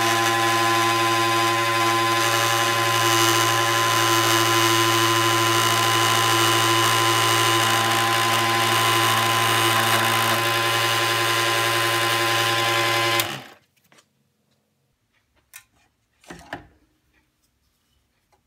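Benchtop scroll saw running steadily with a hum and whine as it cuts the oak shims and handle end sticking out of a ball peen hammer head; it is switched off about thirteen seconds in and stops quickly. A couple of faint knocks follow as the hammer is handled.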